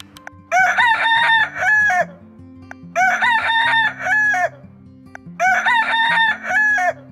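Rooster crowing three times, the same cock-a-doodle-doo repeated about every two and a half seconds, each crow four syllables long, over low background music.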